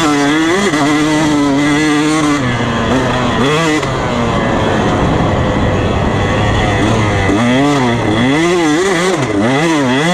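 2019 KTM 125 SX single-cylinder two-stroke, bored to 150cc and fitted with an FMF exhaust, being ridden hard. The revs climb and fall with the throttle: a steady pull at first, a quieter, lower-revving stretch in the middle, then quick rises and falls near the end.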